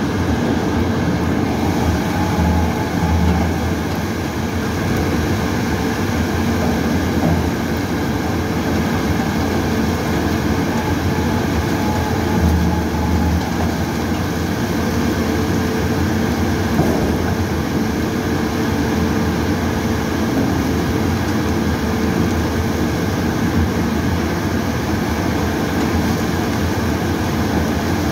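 Electric-motor-driven dual-shaft shredder running and chewing up hard paper core tubes: a steady mechanical noise with a couple of heavier stretches, about two seconds in and again about twelve seconds in.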